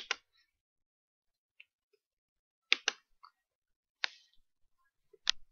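A few sharp computer mouse clicks: a quick pair about two and a half seconds in, then single clicks about a second and two and a half seconds after that.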